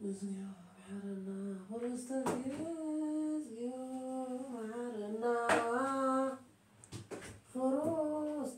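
A woman humming a slow tune in held notes that step up and down in pitch. The humming breaks off briefly about three-quarters through, then starts again, with a few faint knocks.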